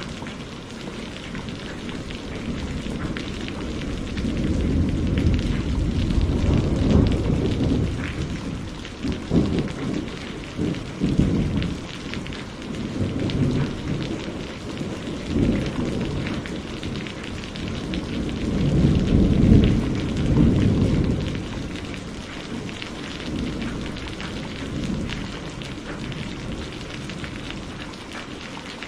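Steady rain falling, with thunder rolling in long low rumbles that swell several times, loudest about two-thirds of the way through, then die away near the end.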